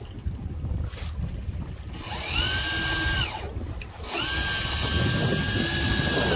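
Electric fishing reel's motor winding in line in two runs, a steady whine that rises in pitch as it starts and drops as it stops. The first run starts about two seconds in and lasts just over a second. The second starts about four seconds in and runs longer.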